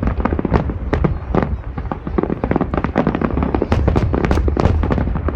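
Fireworks display going off: a dense, rapid run of bangs and crackles over a steady low rumble.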